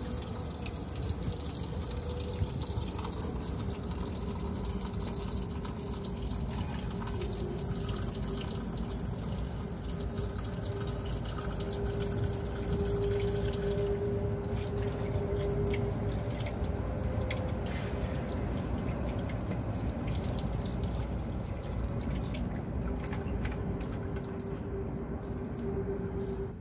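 A steady stream of water running from the tap of a plastic water tank slung under a truck's chassis, splashing below. It cuts off right at the end.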